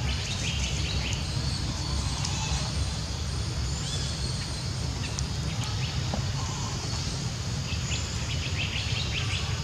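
Outdoor ambience: a steady low rumble with clusters of short, high chirping calls near the start, around the middle and near the end.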